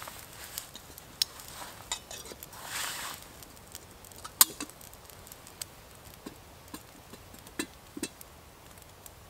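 Small metal pot clinking against a small wood-burning camp stove as it is set on top: scattered light clinks and one sharp metallic click a little over four seconds in, with a brief rustle before it.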